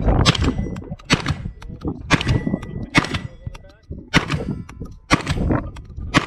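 Gunshots fired about once a second, several of them followed by the ring of hits on steel targets.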